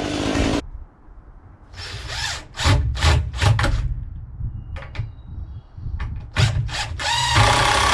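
Cordless drill driving screws into wood in short bursts, with a longer run near the end.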